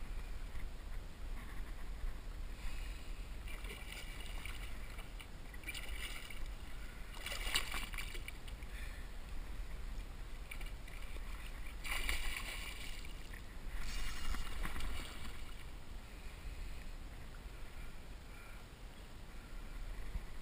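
Water lapping and sloshing around a kayak over a low wind rumble, broken by several louder hissing bursts a few seconds apart, the strongest about seven and twelve seconds in.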